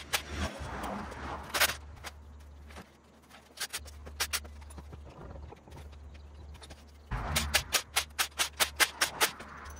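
Hand tools clicking and clinking on metal as parts are taken off an engine on a stand, with a quick, even run of about six clicks a second in the last few seconds, over a low steady hum.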